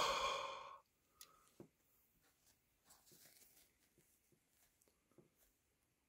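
A short breathy exhale, under a second, huffed at the start, the warm breath used before polishing a diecast toy car. Then near silence with a few faint soft ticks as a microfiber cloth wipes the car.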